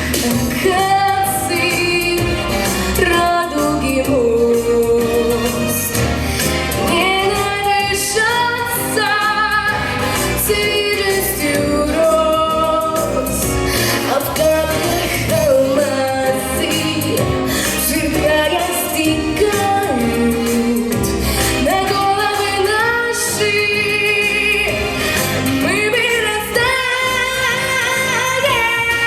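A young girl singing over backing music, holding long notes with vibrato and gliding between pitches.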